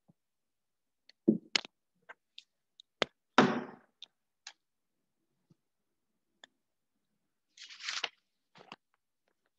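Scattered short clicks and knocks, with a louder brief noisy burst about three and a half seconds in and a short hiss near the end, and silence between them.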